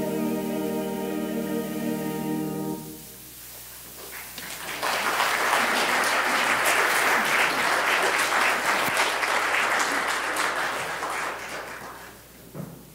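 A church choir holds its final chord, cut off about three seconds in. After a short pause the congregation applauds for about seven seconds, the clapping fading out near the end.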